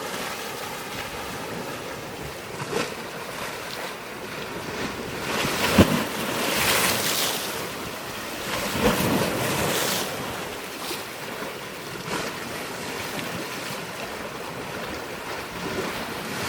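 Wind and water noise with swells of louder rushing, and a few sharp knocks, the loudest about six seconds in.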